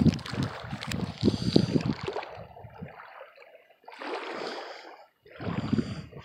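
Gusty wind on the microphone mixed with small waves lapping on the water, rising and falling unevenly with two short lulls.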